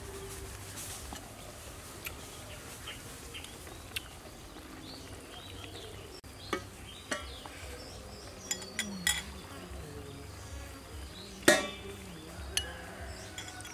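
Chopsticks and spoons clinking now and then against ceramic bowls and a metal pot during a meal, the loudest clink, with a short ring, about eleven seconds in. Insects buzz steadily in the background.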